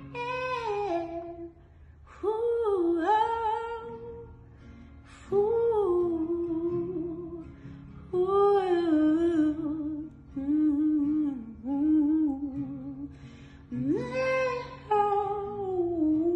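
Wordless hummed vocal melody over a strummed acoustic guitar. The humming comes in short phrases of a second or two, with brief breaks between them.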